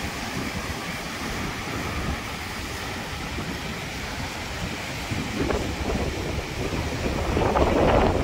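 Surf breaking over a rocky reef shore, with strong wind buffeting the microphone; the rush swells louder near the end.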